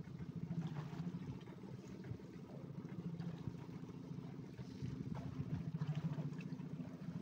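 A fishing boat's engine running steadily, a low even hum with a fast pulse.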